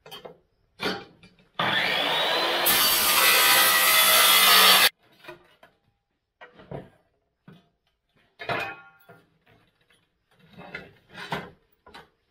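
Hitachi compound miter saw running and cutting through a wooden board for about three seconds, then stopping abruptly. Before and after it, short knocks and scrapes of the board being handled and set on the saw.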